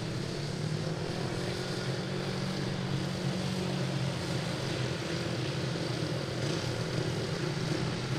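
Ice speedway motorcycles' single-cylinder engines running steadily at low revs as the riders roll across the ice toward the start.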